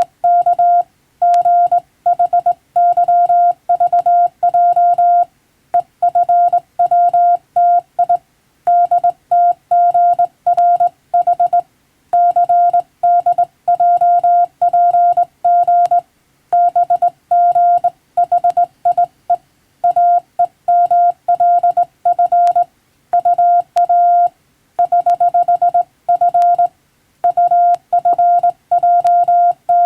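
Morse code sidetone from a hand-worked telegraph key: a single steady pitch keyed on and off in rapid dots and dashes, sending English-language telegram practice text, with brief pauses between groups.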